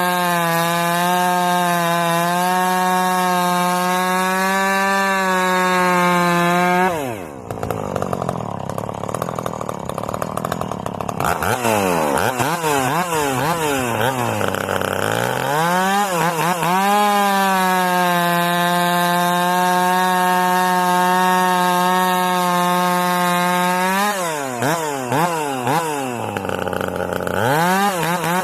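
Ported and straight-piped Husqvarna Rancher two-stroke chainsaw held at a high, steady full-throttle pitch for long stretches. The revs drop away about seven seconds in and again about twenty-four seconds in, rise and fall several times in between, and climb back to full speed near the end.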